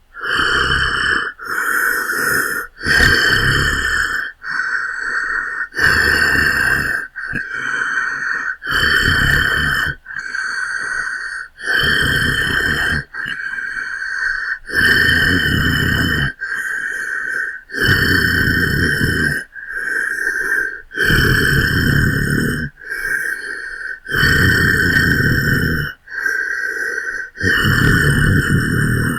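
Hulk-style angry growls, a custom-made sound effect: a run of about twenty harsh, breathy growls, each lasting one to two seconds, separated by short gaps.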